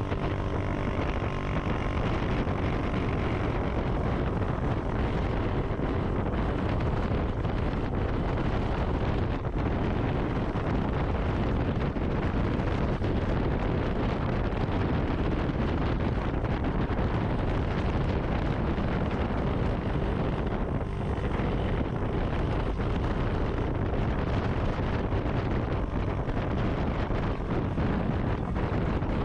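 Wind buffeting the microphone over a motorcycle engine and road noise while riding, steady throughout.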